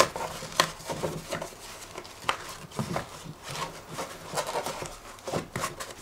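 Hands handling a styrofoam sunshade insert and its elastic bands against the plastic controller: irregular taps, clicks and scrapes.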